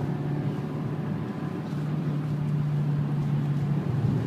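Fiat Panda 100HP's 1.4-litre four-cylinder petrol engine heard from inside the cabin as the car is driven hard, holding a steady high engine note that falls briefly near the end.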